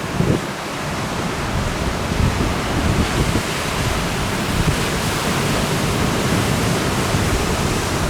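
Strong trade wind rushing over the microphone with low, uneven buffeting, mixed with the steady wash of ocean surf.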